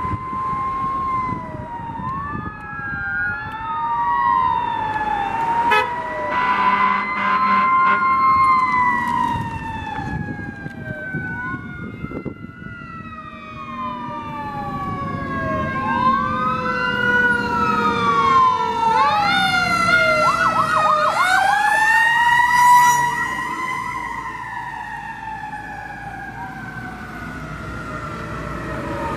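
Fire engine siren wailing, its pitch rising and falling over and over with several siren tones overlapping, and a quicker warble about twenty seconds in. Near the end the siren drops in pitch and fades as the engine passes and moves away.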